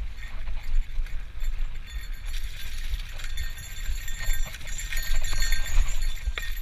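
Trek bicycle rattling and clinking over a bumpy trail, with quick knocks throughout and a steady wind rumble on the camera's microphone.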